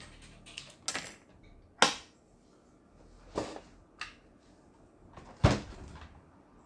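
A handful of separate clicks and knocks from the plastic housing of a Lion My Style sewing machine being handled: the hinged face cover swung shut, then a heavier thump about five and a half seconds in as the machine is tipped over onto the bench.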